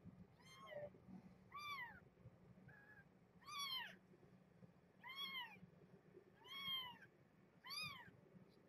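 Newborn kitten mewing: six short, high cries, each rising then falling in pitch, spaced about a second or more apart.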